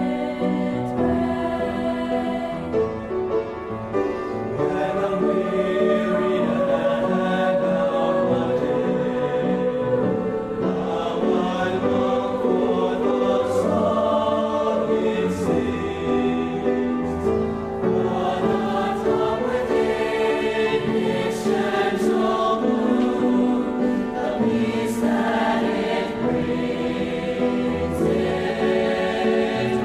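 A choir singing a song with instrumental accompaniment, voices held in long, sustained notes.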